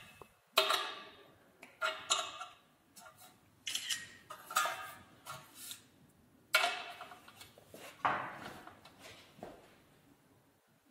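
Long-nose pliers clinking and knocking against the screws and metal end of a door-frame profile: irregular sharp metallic clinks, each with a brief ring, about a dozen in all.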